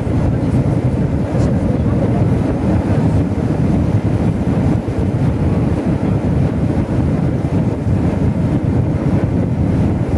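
Steady, dense cabin noise of an Airbus A320-family airliner on final approach, low over the ground just before touchdown: engine noise and rushing airflow heard through the cabin wall at a window seat.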